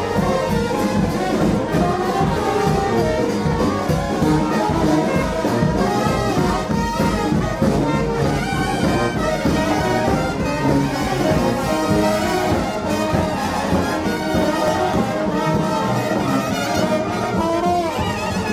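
New Orleans-style brass band playing live: trumpets, trombone and sousaphone over a steady bass-drum beat.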